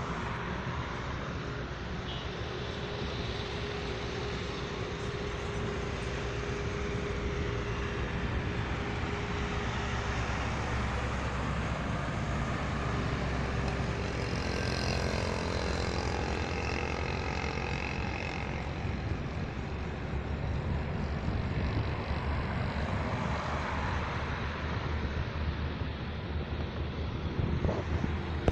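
Heavy trucks passing on a highway: a steady engine drone and tyre noise, swelling about halfway through as a truck goes by close.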